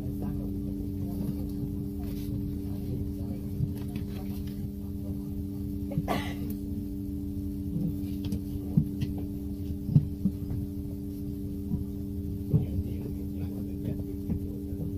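Inside a Xiamen King Long electric low-floor midibus standing still: a steady hum made of several fixed tones over a low rumble. A few short knocks and rattles break in now and then, most strongly around the middle.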